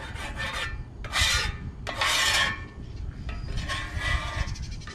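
Flat metal griddle scraper scraping across the steel cooktop of a Blackstone griddle in a series of strokes, the strongest about one and two seconds in.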